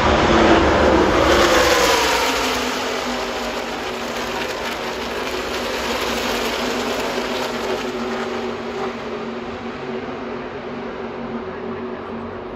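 A pack of NASCAR Truck Series race trucks passes at full speed, their V8 engines dropping in pitch as they go by in the first two seconds. Then comes a steady, many-engine drone that slowly fades as the pack runs away down the track.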